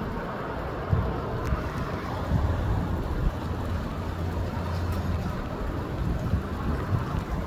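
Gusty wind blowing and buffeting the microphone: a steady rush with low rumbling swells as the gusts hit.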